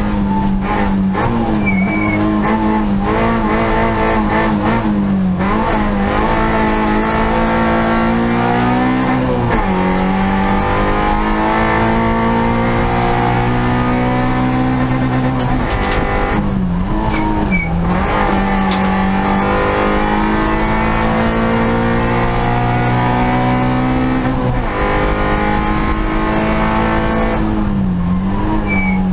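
Onboard sound of a Peugeot hillclimb race car's engine under hard acceleration. The pitch wavers with the throttle through bends in the first few seconds, then climbs steadily in long pulls and drops sharply at gear changes or braking, about a third of the way in, past halfway, and twice near the end.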